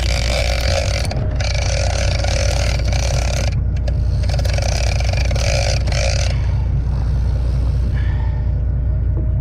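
Large conventional big-game reel working line during a fight with a yellowfin tuna: the line-filled spool spins in three spells of a second or two each, then more faintly. The boat's engine runs steadily underneath.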